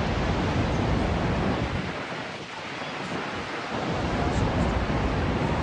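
Wind buffeting the microphone: a rushing, rumbling noise that eases off for about two seconds in the middle, then comes back.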